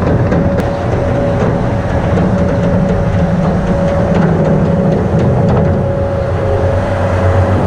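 A steady-running engine with a constant whine over a heavy low hum.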